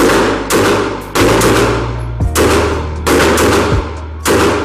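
Gunfire on a shooting range: about eight shots in quick succession, roughly half a second apart, each followed by a long fading tail.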